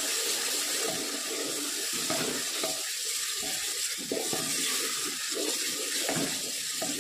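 Onion-tomato masala frying in oil in an aluminium pressure cooker: a steady sizzle, with a wooden spoon stirring and scraping through it.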